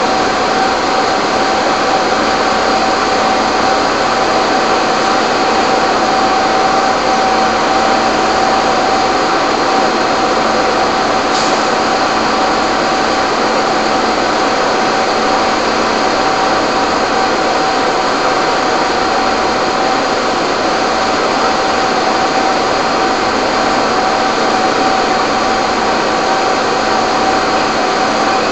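A steady, unchanging machine drone with a constant whine running through it.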